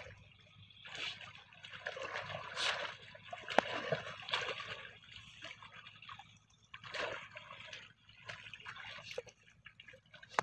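Shallow muddy pond water splashing and sloshing in irregular bursts as a person wades and gropes with his hands among water hyacinth.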